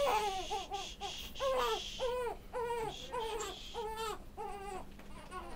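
Infant crying in a rapid run of short, arching cries, about two or three a second, fading weaker near the end.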